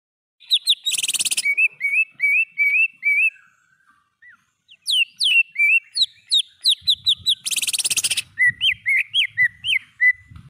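Green leafbird (cucak ijo) singing: quick runs of sharp, sweeping whistled notes, broken by a harsh buzzy burst about a second in and another near eight seconds, with a short pause in the middle.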